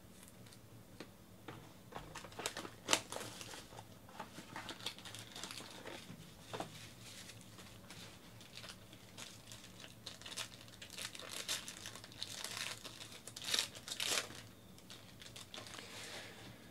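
Plastic trading-card pack wrapper crinkling and tearing as it is pulled open and handled, in irregular crackles that start about two seconds in and come thickest near the start and again near the end.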